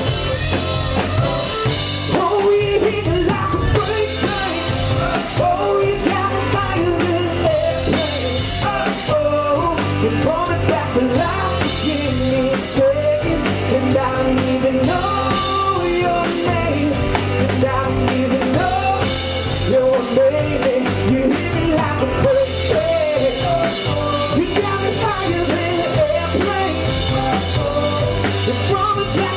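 Live rock band playing: a man singing lead over acoustic guitar, with drums and bass underneath.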